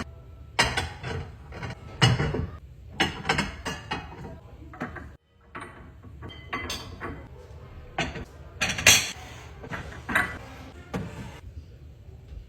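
A run of separate clicks, taps and knocks from spice jars and their containers being handled and set in place, with a short break about five seconds in.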